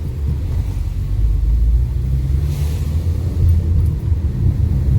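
Fiat Linea heard from inside the cabin while driving: a steady low rumble of engine and road noise, with a brief hiss about halfway through.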